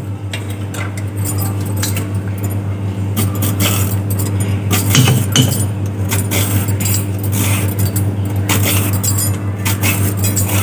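Hand vegetable peeler scraping strips of skin off a zucchini in repeated short strokes, with bangles clinking on the peeling wrist. A steady low hum runs underneath.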